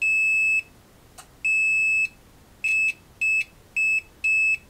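Digital multimeter in continuity mode beeping as its probe touches a via: a high-pitched steady beep, six times, two of about half a second and then four shorter quick ones as contact makes and breaks, with a faint click between the first two. The beeping confirms that the via connects to the traced circuit.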